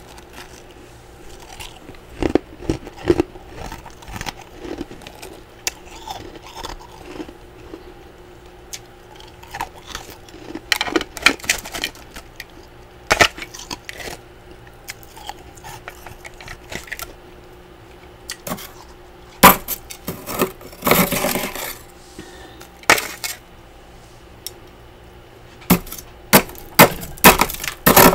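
Thick built-up freezer frost being scraped and chipped off the walls of a freezer compartment with a small hand tool: irregular sharp scrapes and clicks, a longer scraping rasp a little past the middle, and a quick run of strokes near the end.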